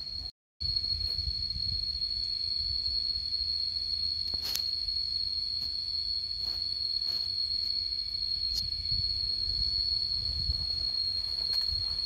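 Insects droning with one steady, high-pitched whine over a low rumble, broken by a few sharp clicks. The sound drops out completely for a split second just after the start.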